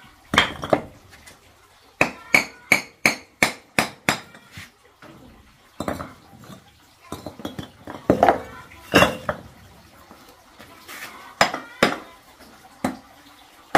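Small hammer tapping on hollow red clay bricks, as bricks are knocked into place at the base of a brick cooking stove: a quick run of sharp, clinking knocks about three or four a second, then scattered taps, some with a short ring.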